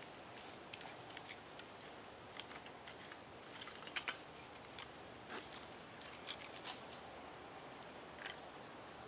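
Faint crackling of a small kindling fire catching in curled bark tinder: scattered light snaps and clicks over a low hiss.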